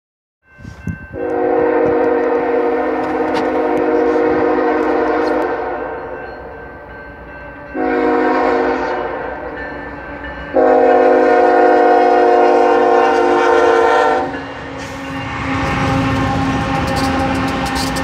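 BNSF freight locomotive's air horn sounding its crossing warning: three loud chord blasts, long, short, long. Near the end the locomotives reach the crossing and the train's low rumble and wheel noise take over.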